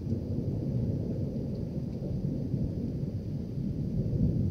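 Rolling thunder from a thunderstorm, a continuous low rumble that swells a little near the end.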